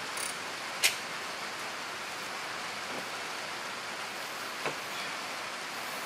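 Steady hiss of rain falling on the shop, with one sharp click about a second in.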